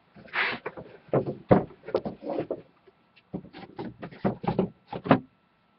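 Wooden shelf boards being lifted and fitted into place: an irregular run of knocks, taps and scrapes of wood on wood.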